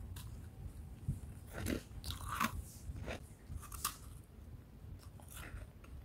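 Bites of soft, dry freezer frost crunching between the teeth, followed by chewing. There are several crisp crunches, bunched together in the middle and one more near the end.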